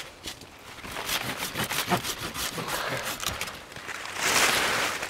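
Guava branch being cut out of the tree: a run of irregular crackling clicks of twigs and wood, then a louder rustling rush of leaves near the end.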